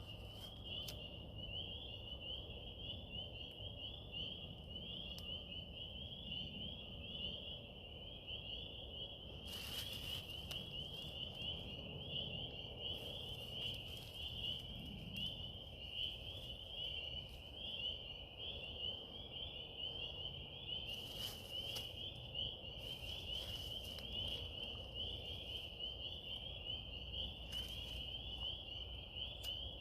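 A steady, dense chorus of small animals calling on one high pitch fills the background, with a few brief rustling crackles from dry beech leaves being handled while lighting a fire.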